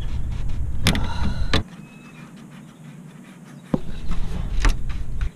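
Pliers working a spring hose clamp on a radiator hose, giving a few sharp metal clicks, over a low rumble that drops out for about two seconds in the middle.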